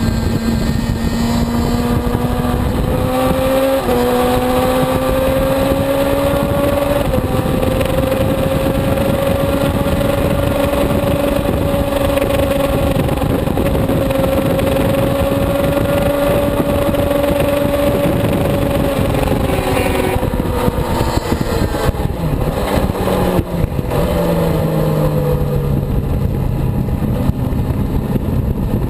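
Suzuki GSX-R750 inline-four sportbike engine running at high revs under load at track speed. Its pitch climbs slowly and holds steady for a long stretch, then falls in steps after about twenty seconds as it shifts down, and rises again near the end.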